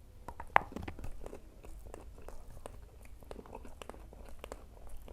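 Close-up chewing of crispy fried tofu. There is one sharp bite about half a second in, then irregular crunchy chewing.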